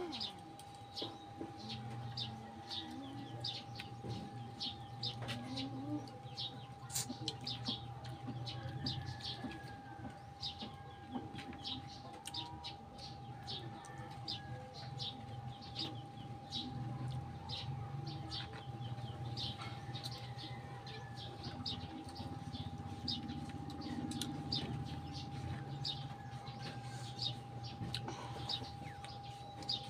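Small birds chirping over and over, a few short chirps a second, with a steady tone underneath.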